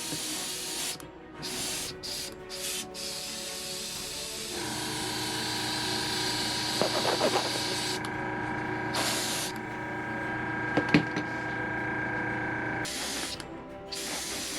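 Airbrush spraying paint with a steady hiss that stops and starts several times as the trigger is released and pressed. A steady hum of several held tones joins about four and a half seconds in and cuts off near the end.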